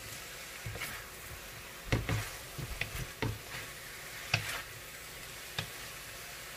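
Stir-fry of asparagus, mushrooms and shrimp being tossed with a wooden spatula in a metal wok: a low steady sizzle, with the spatula knocking against the pan several times.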